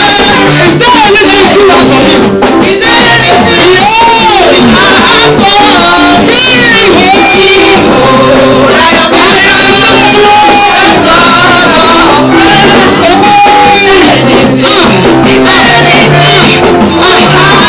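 Loud live gospel praise singing: women's voices through microphones leading a song over a band with drums and percussion, the congregation joining in.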